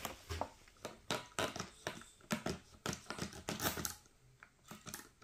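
Irregular clicks, taps and rubbing of a motorcycle helmet visor being handled and cleaned.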